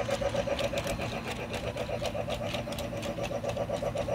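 Lionel Polar Express toy train running around its track, a steady mechanical chugging that pulses about six or seven times a second, with light clicks over it.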